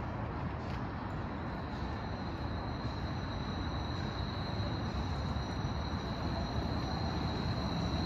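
Portland Streetcar 002, a Škoda 10T low-floor streetcar, approaching on its rails with a steady low rumble. A high, thin squeal builds through the second half as the car starts into the tight curve, typical of wheel flanges squealing on curved track.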